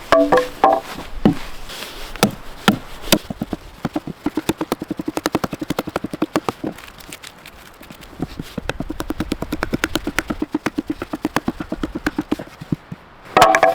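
Wood knocking on wood: a few separate strikes, then two long runs of quick, even taps with a hollow ring, as a piece is worked into a V-shaped notch in a nail-free wooden joint.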